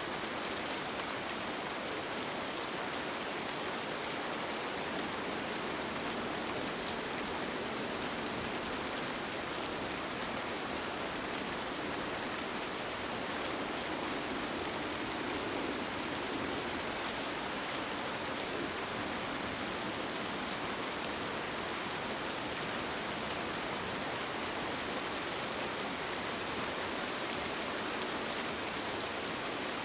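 Steady rain falling on a tent, with scattered individual drops ticking through the even hiss.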